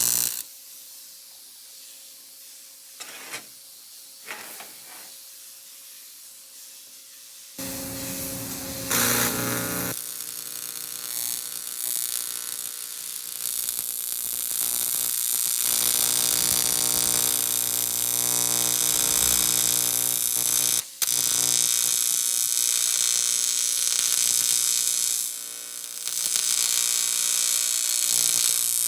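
TIG welding arc on an aluminium intake manifold, a loud steady buzzing hiss that strikes up about seven and a half seconds in after a quieter stretch of steady machine hum and a few short blips, then runs on with a brief break around 21 seconds.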